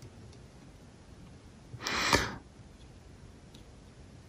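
Quiet room tone with one short, breathy exhale, a sigh or snort through the nose, about two seconds in.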